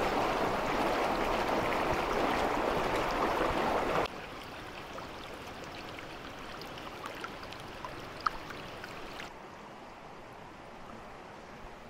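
Shallow stream rushing and splashing over rocks, loud and close. About four seconds in, it cuts suddenly to a much softer, gentler flow of water that fades a little further near the end.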